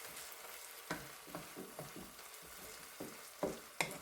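Chopped tomatoes, onion, scallions and garlic sizzling softly in butter in a frying pan, with a utensil scraping the pan in a run of short strokes from about a second in as the vegetables are stirred.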